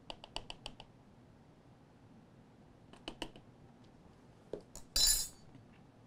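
Metal spatula tapping rapidly against the rim of a plastic agarose bottle, about seven quick clicks, to shake powder off while weighing it out. A few more taps come about three seconds in, and a short scraping rustle follows near the end.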